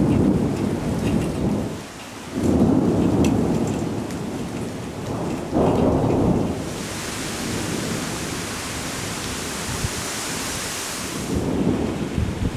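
Thunder rumbling in several rolling peals over steady rain. A stretch of louder, high hiss comes up in the middle and fades before the last rumble near the end.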